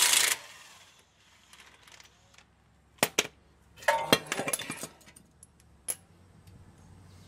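DeWalt cordless impact wrench hammering on a brake caliper bracket bolt, cutting off within half a second, then a couple of sharp metal clinks about three seconds in and a rattling clatter of loose brake parts about four to five seconds in.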